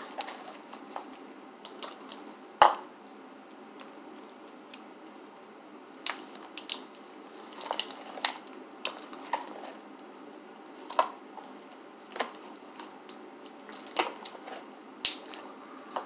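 Homemade glue slime being kneaded and squeezed by hand, giving irregular short clicks and pops, the loudest about two and a half seconds in.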